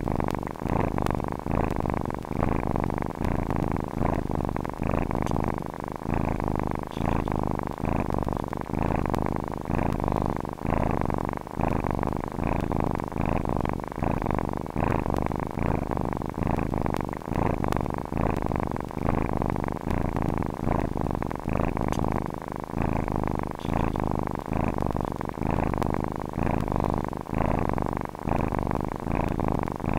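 Domestic cat purring steadily, in even repeating pulses.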